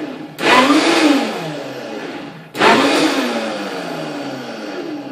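Vitamix blender pulse-blending basil into a thick mango and date dressing. The motor kicks on twice in short pulses, each starting suddenly with a quick rise in pitch and then winding down.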